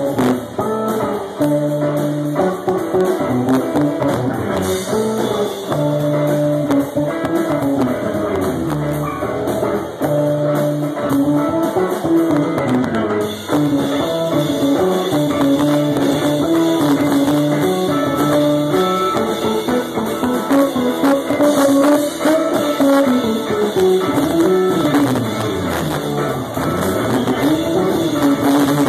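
Live band playing an instrumental passage: drum kit, electric bass and electric guitar, with the bass line stepping up and down underneath.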